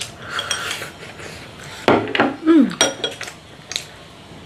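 Chopsticks scraping and tapping against a ceramic rice bowl as food is shovelled into the mouth, then sharp clacks about two seconds in as the bowl and chopsticks are set down on a wooden table, with a short falling tone among them and a few lighter clicks after.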